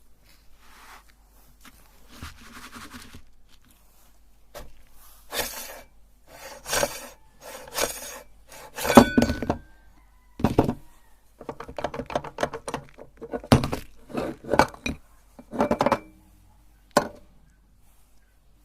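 A run of irregular clinks and scrapes of hard objects knocking together, in short bursts with pauses between them.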